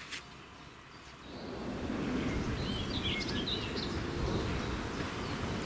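Outdoor ambience: a steady low rumble sets in about a second in, and a small bird chirps a quick string of notes near the middle.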